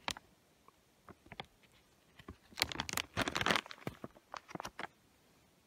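Crinkling and tearing of a plastic snack wrapper being handled, with scattered small clicks and a denser rustle in the middle.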